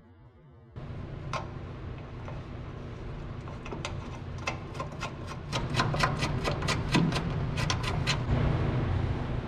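Sharp metallic clicks, a few a second in irregular runs, as a fastener is worked by hand into a threaded weld bung on a steel crossmember, over a steady low hum.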